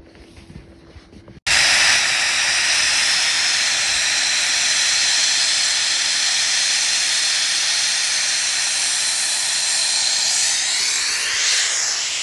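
Snowmaking guns blasting water and compressed air: a loud, steady hiss that cuts in suddenly about a second and a half in.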